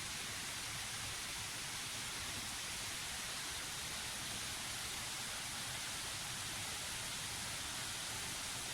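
Steady, even hiss of falling water, unchanging throughout, with no other distinct events.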